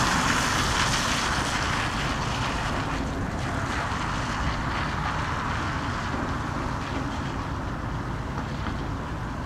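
Wind buffeting the microphone outdoors, a fluttering low rumble under a steady broad hiss that eases slightly over the seconds.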